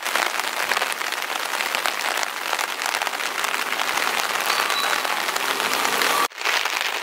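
Steady rain falling, a dense crackling hiss that breaks off for an instant about six seconds in.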